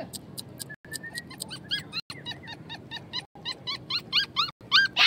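A puppy whining in a rapid run of short, high yelping cries, about three or four a second, getting louder toward the end, with sharp clicks between them.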